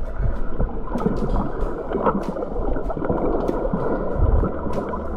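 Muffled water noise recorded underwater, the steady wash sitting low with little above the midrange, and scattered sharp clicks.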